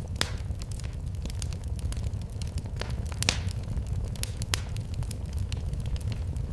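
Wood fire burning in a fireplace: a steady low rumble of flames with frequent, irregular sharp crackles and pops. A louder pop comes about three seconds in.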